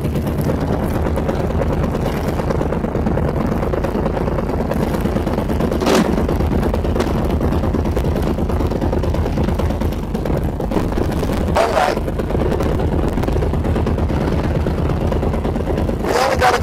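Motorcycle engine running steadily while riding, a continuous low rumble. A short sharp knock cuts through about six seconds in.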